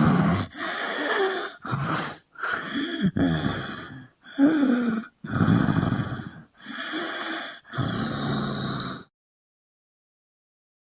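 Male zombie vocal sound effects: a run of about eight short, breathy groans, gasps and snarls one after another, then they stop about two seconds before the end.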